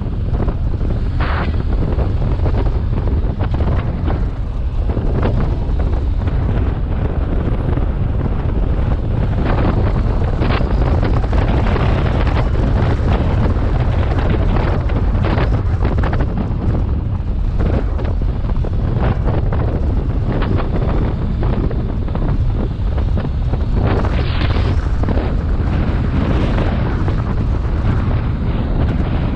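Wind rushing and buffeting over the microphone of a camera on a moving BMW R 1250 GS motorcycle. It makes a steady heavy rumble with frequent short, sharper gusts.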